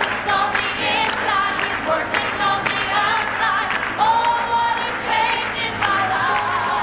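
Live gospel music: a woman sings lead into a microphone over a choir and accompaniment, holding one long note about four seconds in and ending on a wavering note.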